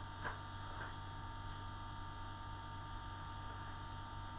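Steady low mains hum, with faint scratches of a felt-tip pen drawing a line on card twice near the start.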